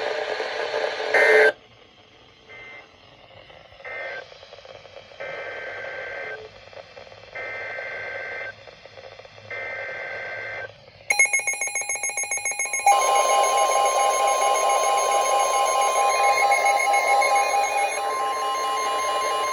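NOAA Weather Radio sounding an Emergency Alert System activation for a severe thunderstorm warning. Three buzzy SAME data header bursts, each about a second long with short gaps, come first, then a louder burst about eleven seconds in. After that the steady 1050 Hz warning alert tone begins, with a pulsing, higher alarm tone layered over it.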